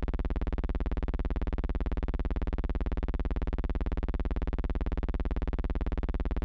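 Steady electrical buzz with many overtones and a fast, even flutter, unchanging throughout: a hum on the soundtrack of silent archival film rather than any sound of the scene.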